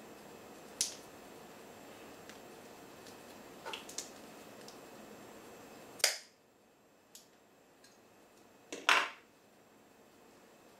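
A few short, sharp clicks and taps as hands handle small pieces of tape and FEP film at a wooden table. The loudest two come about six and nine seconds in.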